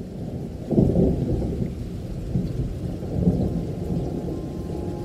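Low rolling rumble of thunder, swelling to its loudest about a second in and rolling on in smaller swells.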